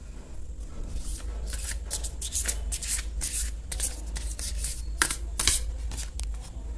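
Deck of oracle cards being shuffled by hand: a string of quick papery flicks and slaps, the sharpest a little after five seconds in.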